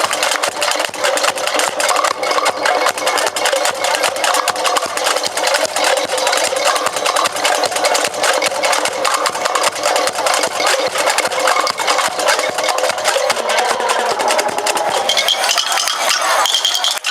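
Fast, dense clattering of street-dance percussion, with no clear beat. It thins out a little near the end.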